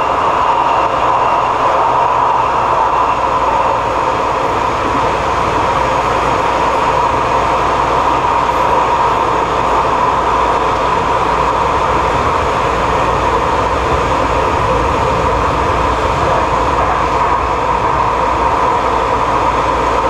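Metro train running at speed, heard from inside the carriage: a steady rolling noise with a constant mid-pitched whine.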